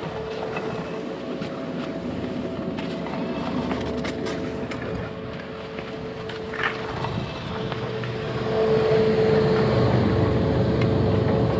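Steady mechanical hum of a ski tow's drive and running cable, with skis scraping and hissing over packed snow. It grows louder about eight seconds in, as the skier is towed up the lift track.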